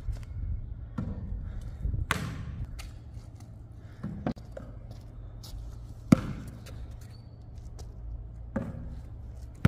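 Basketball thudding on an outdoor hard court and off the hoop during shooting practice: single sharp hits a second or two apart, the sharpest about six seconds in, over a steady low background rumble.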